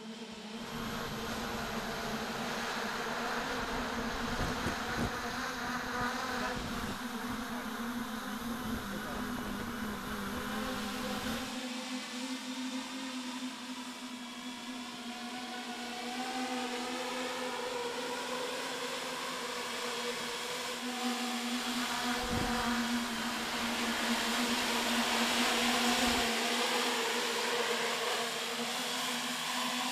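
Buzzing drone of the GL-10 Greased Lightning tilt-wing aircraft's ten propellers in flight, the pitch wavering and shifting as the propellers change speed through the transition to hover, and growing louder toward the end as it hovers low. Wind rumble on the microphone through the first third.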